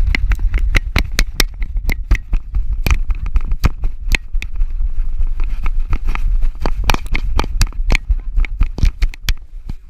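Handling noise from a GoPro Hero 4 strapped to a small dog's back: irregular sharp clicks, knocks and scrapes as the housing rubs and bumps against the dog's fur while it moves, over a steady low rumble.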